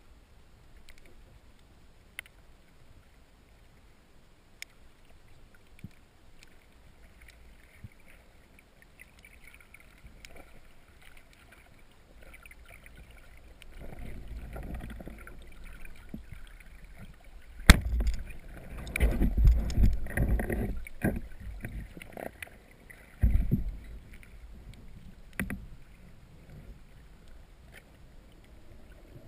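Water splashing and rushing against an underwater camera during a spearfishing dive, faint scattered clicks at first, then louder churning in the second half with a single sharp click just before the loudest stretch.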